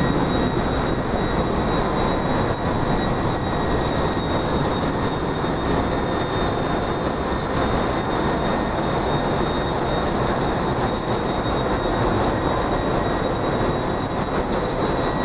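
Loud, steady din of a bulk carrier's engine room machinery running, with a strong high hiss and a few faint steady whines over it.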